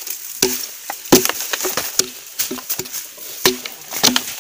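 Machete blade hacking and splitting a green bamboo culm: about a dozen sharp, irregular knocks with splintering, some strikes ringing briefly, as the hollow stalk is cut open to get at the bamboo worms inside.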